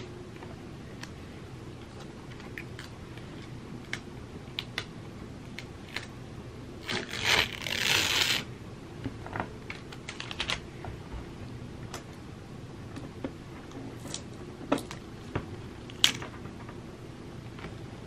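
Tape being picked at with fingernails and peeled off a painted canvas: scattered light clicks and taps, with a longer tearing rustle about seven to eight seconds in as a strip comes away.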